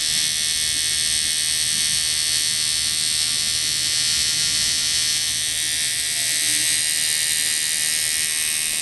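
Stingray X2 rotary tattoo machine running at 8.5 volts with its gib screw locked fully down (no give), its hardest-hitting setting: a steady buzz with a low hum underneath.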